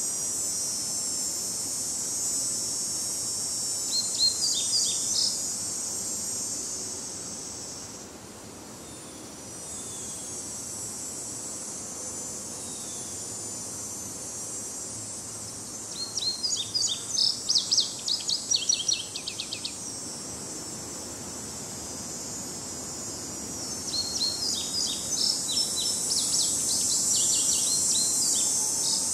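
A songbird sings three phrases of rapid repeated chirps, about four, sixteen and twenty-four seconds in. Under it runs a steady high insect drone.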